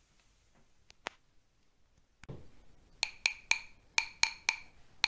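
Two 3D-printed plastic glow-stick tubes struck together like claves: starting about three seconds in, a rhythm of sharp, ringing taps about a quarter second apart, in groups of three.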